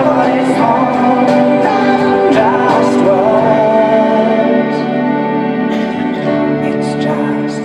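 Music: a slow song of sustained instruments with a sung melody.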